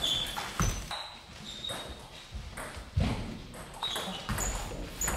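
Table tennis between points: a few sharp knocks from the celluloid ball bouncing, and short high squeaks of the players' shoes on the sports-hall floor.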